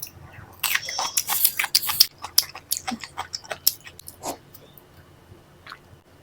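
Close-miked chewing of a mouthful of paneer lababdar and lachha paratha: a dense run of crisp clicks and smacks for about a second and a half, then thinning to scattered clicks.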